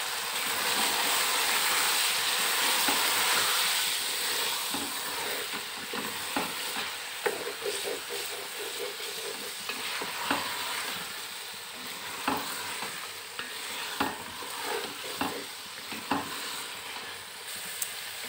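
Chicken and capsicum sizzling in a metal pot over a high flame as the water is fried off, while a wooden spatula stirs, scraping and knocking against the pot. The sizzle is loudest in the first few seconds; then the spatula knocks stand out more.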